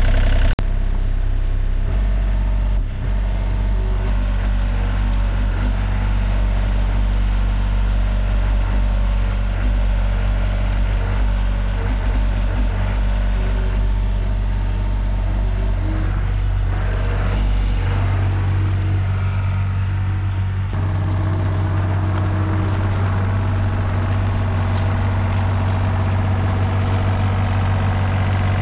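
Takeuchi TB235-2 mini excavator's diesel engine running steadily with a deep hum. Its note shifts twice in the last third, as the machine's load or speed changes.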